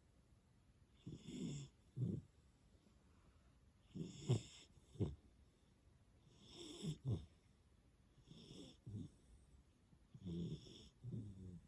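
A three-month-old black Labrador Retriever puppy snoring in its sleep, one snore about every two to three seconds, each breath in two short parts.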